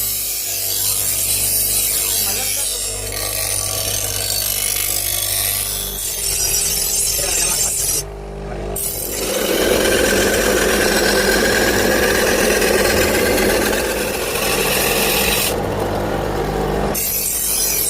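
Electric abrasive power tool working on the sickle: a steady rasping, grinding noise over a constant motor hum. About eight seconds in it pauses briefly, then comes back stronger and lower. Near the end the upper hiss drops away for about a second and a half before returning.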